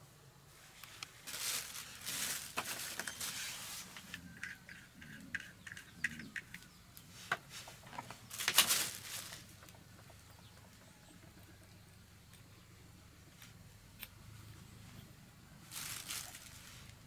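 Thin plastic bag crinkling and small wiring parts being handled, in short bursts of rustling with scattered light clicks between them. The loudest burst comes about halfway through.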